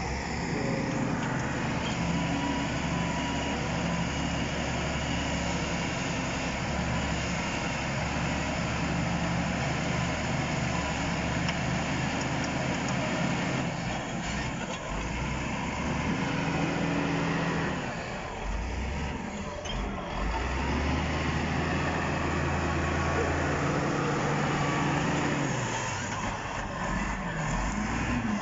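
Shantui SD16 crawler bulldozer's diesel engine working under load as the blade pushes a large uprooted tree, its engine note rising and falling a few times.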